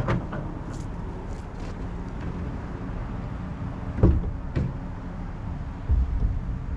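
Pickup truck engine idling steadily as it waits to tow a car on a strap, with a few knocks and thuds, among them a door shutting about four seconds in.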